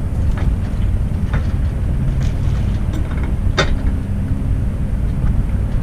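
An engine running steadily, with a few scattered clicks and knocks over it; the loudest knock comes about three and a half seconds in.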